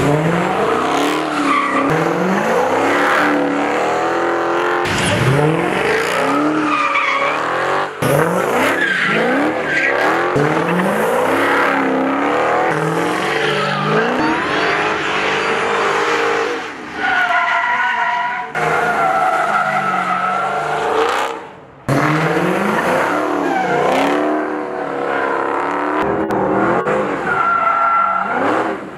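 Supercharged 6.2-litre Hemi V8s of Dodge Challenger and Charger SRT Hellcats revving hard, the engine pitch rising and falling again and again, with tyres squealing and skidding through drifts and burnouts. The sound changes abruptly several times where shots are cut together, and a long, steady tyre screech is heard a little past the middle.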